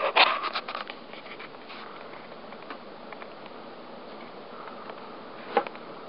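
Casablanca Palisades direct-drive ceiling fan running with a steady rush of air. A flurry of clicks and scrapes in the first second, and a single sharp click near the end.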